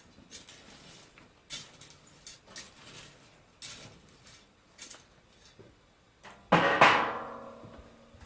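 Metal tools knocking and clinking at a lead-casting furnace, then a loud metallic clang about six and a half seconds in that rings on for a second or so.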